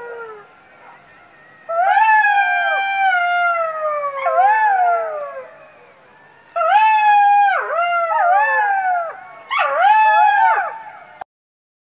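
Jackal howling: several long, wavering wails that mostly slide downward in pitch, with quavering dips and rises, in a few bouts. The howling stops abruptly shortly before the end.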